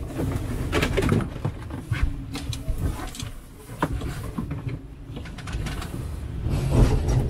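Wind buffeting the microphone as a low, gusty rumble, with rustling and knocks from foul-weather jackets and a line being handled.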